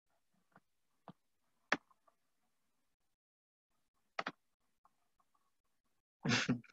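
A handful of short, sharp single clicks, about four of them spread over the first four seconds with silence between, as from a computer mouse at the microphone. Near the end, a brief louder burst of a voice.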